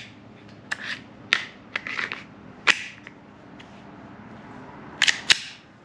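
Sharp clicks of .22 LR cartridges and a Glock 44 magazine with a +5 extension as it is handled and loaded. The clicks are scattered through the first three seconds, with two close together near the end.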